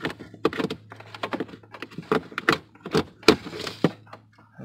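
Irregular plastic clicks and knocks as a temperature blend door actuator is wriggled out from behind a Ford F-150's dash, its housing bumping the surrounding brackets and wiring. A steady low hum runs underneath.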